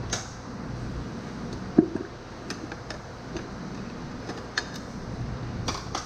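Scattered clinks and knocks of steel hand tools, flat screwdrivers and vise grips, being handled on a metal bench, over a steady low hum; the loudest is a single knock with a short ring about two seconds in.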